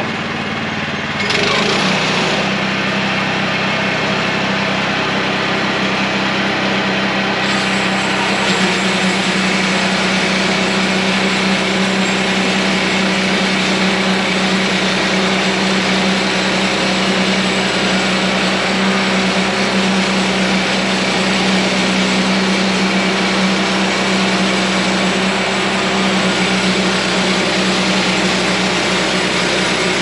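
Small gasoline engine of a Woodland Mills bandsaw mill running steadily under load as the band blade cuts a board from a log. The sound steps up and grows louder about a second in.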